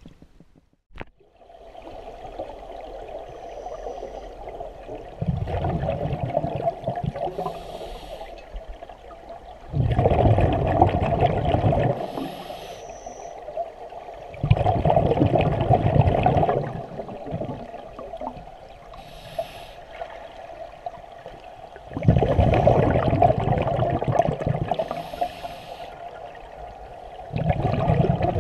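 Scuba diver's regulator breathing underwater: five long bubbling exhalations, each lasting about two seconds, with a short hissing inhalation between most of them.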